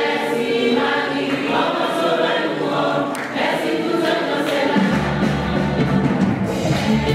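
Choir singing a hymn with a steady beat, a low bass accompaniment coming in about five seconds in.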